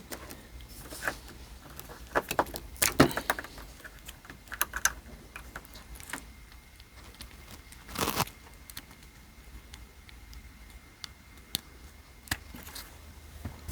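Scattered clicks, knocks and rattles of PC case fans and their cables being handled while one fan is unplugged from a power supply and the next is connected.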